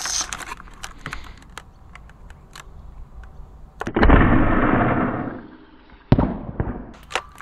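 ZWQ S100 Nerf sniper blaster firing a dart about four seconds in: a loud sudden burst that dies away over about a second and a half. A single sharp knock follows about two seconds later, with a few light handling clicks before the shot.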